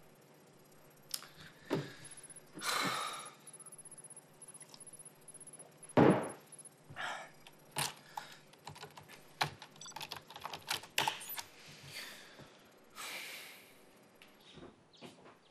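Computer keyboard keys tapping in scattered runs, with one heavy thump about six seconds in and a few short rustling swells.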